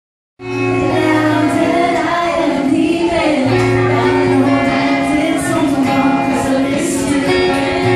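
A woman singing into a microphone over acoustic guitar chords. The music starts suddenly just under half a second in and carries on steadily.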